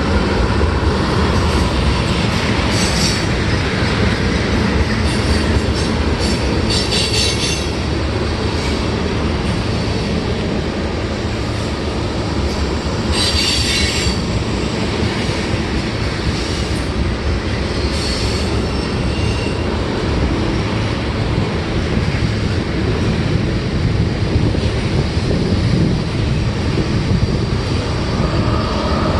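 Freight train cars rolling past with a steady rumble and clatter on the rails. Brief high-pitched wheel squeals break out about four times.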